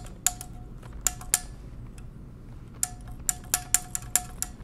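Small steel parts of a Monroe Model K mechanical calculator clicking and clinking as a lever is fitted onto its pivot and worked by hand. There are about ten sharp metallic clicks, each with a brief ring: a few spaced apart at first, then a quick run of them in the second half.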